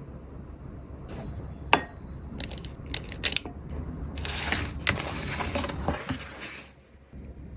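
Crisp crunching and clicking: one sharp click, a few more clicks, then about two and a half seconds of dense crunching that stops abruptly.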